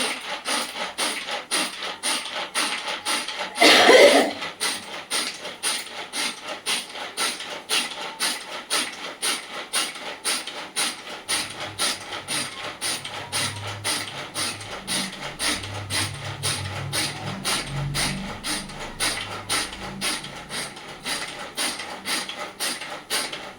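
Ingredients being coarsely ground by hand on a stone, with even rubbing strokes about two a second and one louder scrape about four seconds in.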